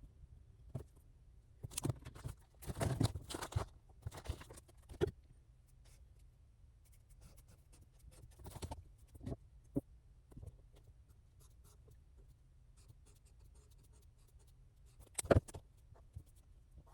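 Writing on paper at a desk: short scratchy strokes of a pen in bursts, with a few clicks and light handling knocks, over a faint low hum.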